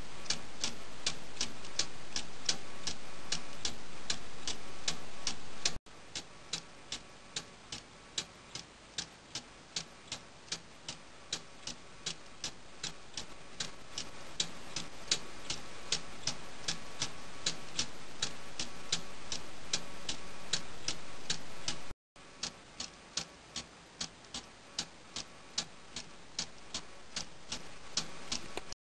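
Meccano balance-wheel clock ticking: the escapement's metal parts click in a fast, even rhythm as the spring-loaded balance wheel swings back and forth.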